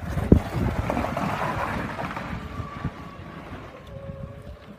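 Small engine of a go-kart-sized mini school bus driving past and fading as it pulls away, with wind buffeting the microphone.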